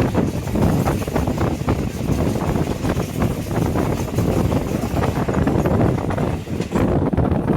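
Passenger train running at speed: a steady rumble of wheels and wind, with many small knocks and rattles running through it.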